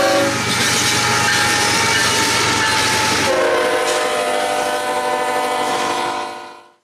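A freight locomotive's multi-chime air horn sounding a long chord as an intermodal train passes, the chord dropping in pitch about three seconds in as the locomotive goes by, over the rumble and clatter of the train. The sound fades out near the end.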